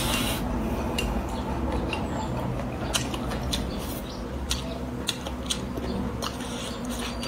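Close-up eating sounds: chewing a mouthful of rice and pickled bamboo shoots, with scattered short crisp clicks from chopsticks against a ceramic bowl, over a steady low background hum.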